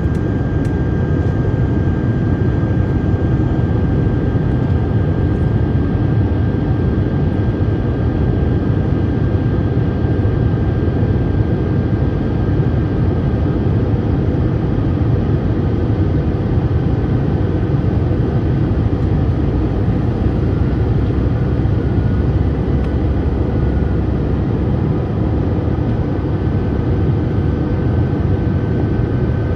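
Steady in-flight cabin noise of an Airbus A321 airliner: a constant rumble of jet engines and airflow, with a thin steady whine above it.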